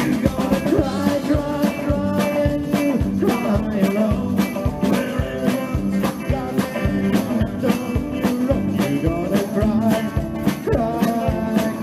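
Live band playing an instrumental passage: electric guitar and upright double bass over drums keeping a steady beat.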